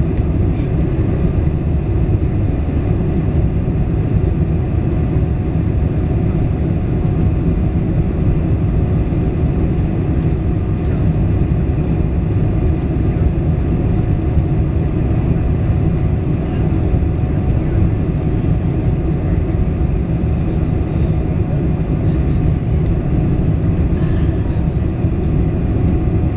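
Boeing 747-400 cabin noise on final approach with the flaps extended: a loud, steady low rumble of airflow and engines, with a faint steady hum above it.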